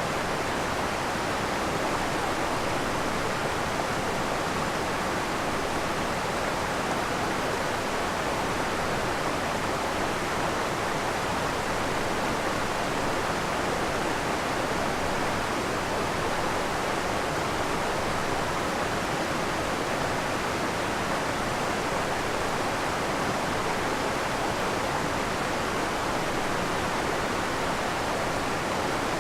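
A waterfall on a coastal rainforest creek, its water pouring and splashing in a steady, unbroken rush.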